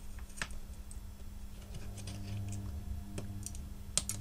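A few light clicks and taps from small electronic parts and tools being handled on a workbench, over a steady low electrical hum.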